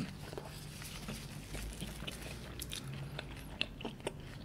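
Close-miked chewing of a mouthful of beef Wellington, puff pastry and beef, quiet with scattered small clicks.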